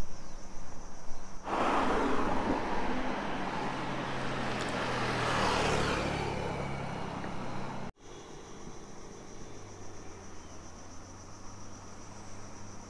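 Road traffic passing close on a bridge: a motorcycle and cars go by, loud for about six seconds, their engine note dropping as they pass, before the sound cuts off abruptly. Insects chirr steadily and high-pitched before and after.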